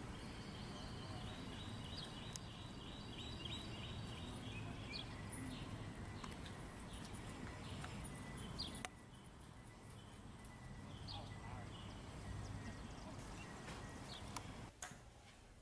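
Faint outdoor ambience: a steady low rumble and hiss, with birds chirping in quick repeated notes during the first few seconds and now and then afterwards. Near the end it drops abruptly to quieter indoor room tone.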